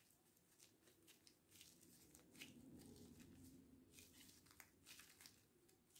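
Faint crinkling of disposable plastic gloves, with soft scattered crackles as the hands knead and roll a ball of moist edible clay mix.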